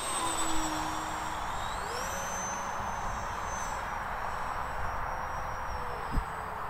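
The 50 mm electric ducted fan of a radio-controlled Avro Vulcan model whines in flight over a broad rush of air. Its pitch sags slightly, then climbs sharply about two seconds in as the fan speeds up, and holds there. A brief thump comes about six seconds in.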